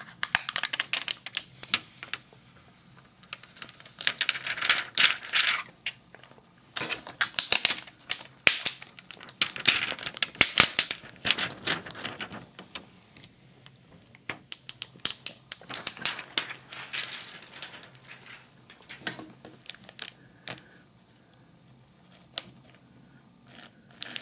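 Clear protective plastic film being peeled off a tablet screen and handled, crinkling and crackling in several bursts with short pauses between them.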